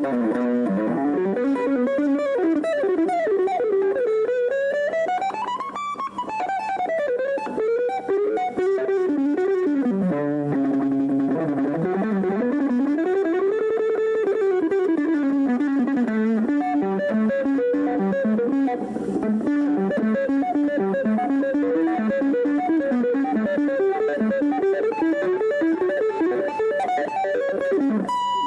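Guitar music: a rapid, continuous run of notes with the melody sweeping up and down in long glides, rising highest about six seconds in.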